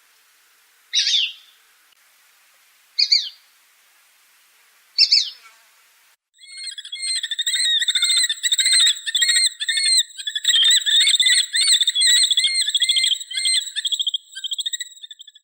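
Small Accipiter hawk of the shikra group calling: three sharp single calls about two seconds apart, then a fast series of repeated calls lasting about nine seconds, with a steady high whine alongside.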